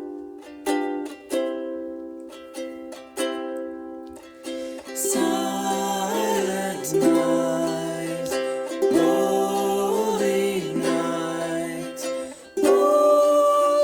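Music recorded with a stereo microphone array: a small plucked string instrument picks out single notes, and a singing voice comes in about five seconds in with the strings going on beneath it.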